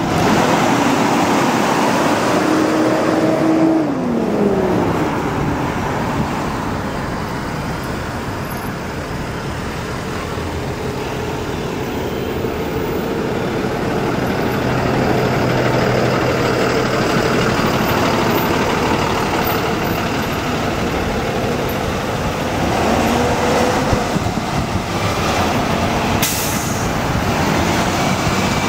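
Steady city road traffic noise, with the engines of passing vehicles rising and falling in pitch a few times and a short hiss near the end.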